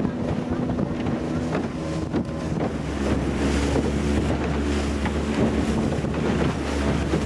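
Small motorboat's engine running steadily at speed, with wind buffeting the microphone and water rushing and splashing around the hull.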